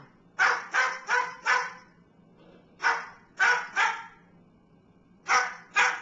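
White cockatoo mimicking a dog's bark: nine short, loud barks in bursts of four, three and two.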